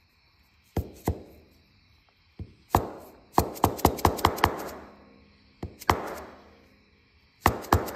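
Sharp metallic taps of a screwdriver tip on a piston ring in its groove on a Honda XL175 piston, each tap ringing briefly, in irregular clusters with a quick run of about six taps about halfway through. The ring is being tapped gently to work it loose without damaging it or the piston.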